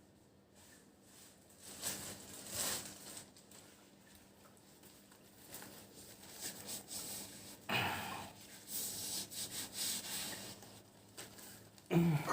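Irregular rustling and rubbing sounds, in a few separate spells, with a short louder sound near the end.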